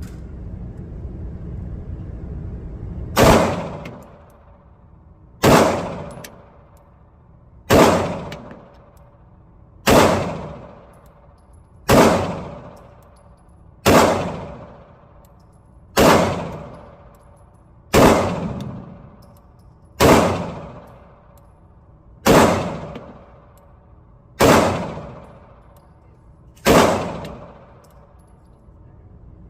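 A 9mm pistol fired twelve times in slow, evenly paced shots about two seconds apart. Each shot has a long fading tail.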